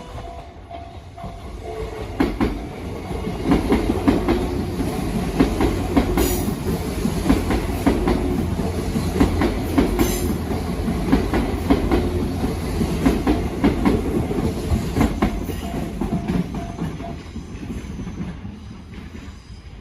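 A train passing close by, its wheels clacking over rail joints in a repeated rhythm. It builds up about two seconds in and fades away near the end.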